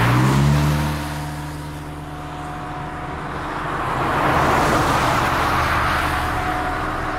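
Road traffic: a vehicle's engine rises in pitch as it speeds up and then runs steadily. About four seconds in, the tyre and road noise of a passing car swells and fades.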